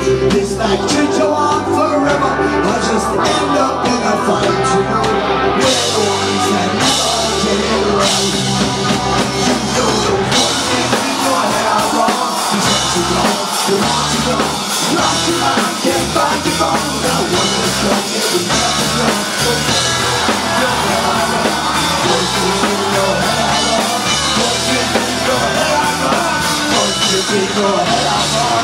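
Rock band playing live: drum kit, electric guitars and bass, with singing.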